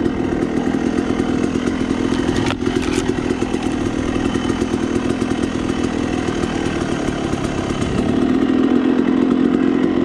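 Dirt bike engine running steadily as the bike heads downhill on a trail, with a sharp knock about two and a half seconds in; the engine gets louder near the end.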